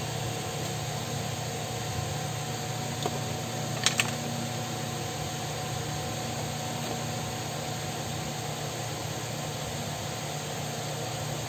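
Electric fan running with a steady hum and rushing air, with two quick sharp clicks about four seconds in.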